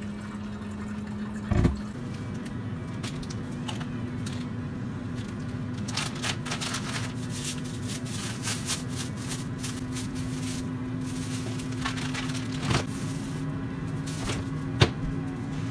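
Crackling and crinkling while raw hamburger patties are taken from a plastic bag and laid in a frying pan, over a steady low hum that rises slowly in pitch. A single knock comes about a second and a half in.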